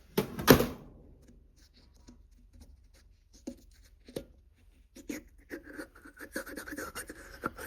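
Small brake master cylinder parts being handled and fitted by hand: one loud clatter about half a second in, then scattered light clicks and knocks. A faint steady hum joins in over the last couple of seconds.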